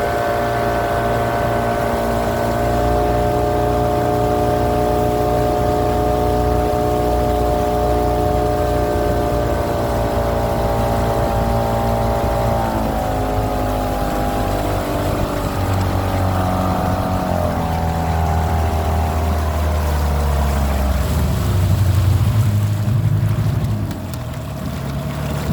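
Motorboat engine running at steady speed, then throttled back in steps from about halfway through, its pitch falling until it slows to a low run near the end.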